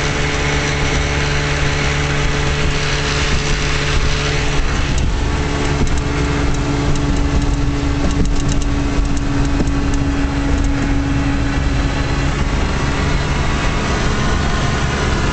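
1956 Johnson Javelin 30 hp two-cylinder two-stroke outboard running steadily as the boat is under way, with a slight change in its tone about four to five seconds in.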